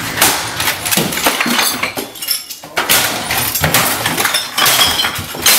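Repeated crashes of a desk being smashed up: glass bottles clinking and breaking among hard knocks of things being struck and knocked over, many sudden hits in quick succession.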